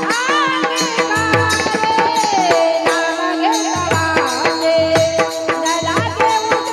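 A woman singing a devotional bhajan melody over a steady drone, with rhythmic hand-drum strokes and a jingling rattle keeping time.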